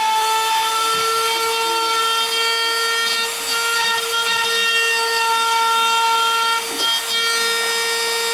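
Handheld rotary tool running at high speed in a homemade carving machine, its bit routing a relief pattern into a wooden board: a steady high whine over the rasp of the cutter in the wood. The whine dips briefly about seven seconds in.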